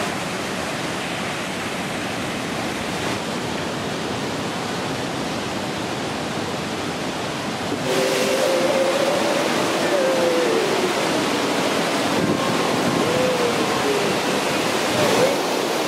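Steady rush of ocean surf. About halfway through it grows louder, and voices come in over it, holding long sung notes and then sliding between pitches.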